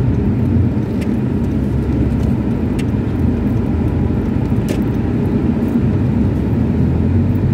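Steady low rumble of a car's engine and tyres on wet pavement, heard from inside the moving car's cabin, with a few faint ticks.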